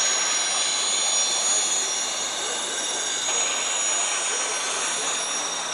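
Steady high jet-like whine of an N scale Union Pacific gas turbine locomotive's sound decoder, heard through the model's small speaker, mixed with the rolling noise of N scale freight cars passing on the track.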